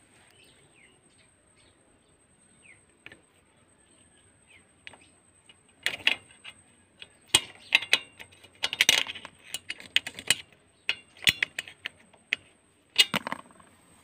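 Metal hand tools clinking and scraping against the exhaust port of a TVS Super XL moped engine. A quiet start, then from about six seconds in a run of sharp, irregular clicks and clanks.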